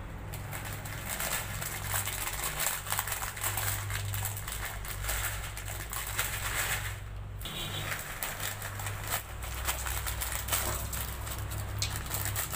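Plastic wrapper of a Maggi instant-noodle packet crinkling as it is handled and shaken over a pot. Dry noodle bits patter into the water, over a steady low hum.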